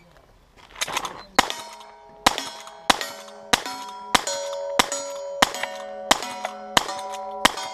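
Lever-action rifle fired about ten times in quick succession, a shot every two-thirds of a second or so, each hit setting the steel targets ringing, the ring carrying on between shots.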